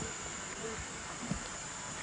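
Caledonian Railway No. 123, a 4-2-2 steam locomotive, moving slowly past with a steady hiss of steam and a single low knock just over a second in.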